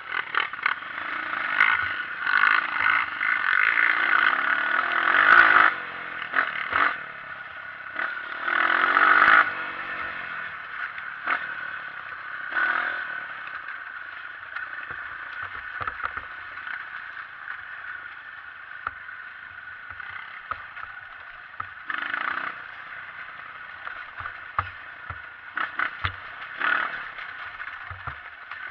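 Honda CRF230 trail bike's single-cylinder four-stroke engine revving up in repeated surges and dropping back while riding, with clattering and knocks from the bike over rough ground.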